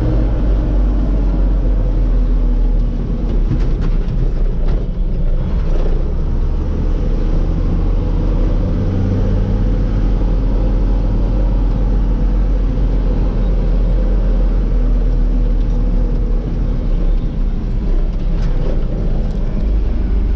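Farm tractor's diesel engine running steadily under way on the road. Its note shifts a little a few seconds in and again near the end.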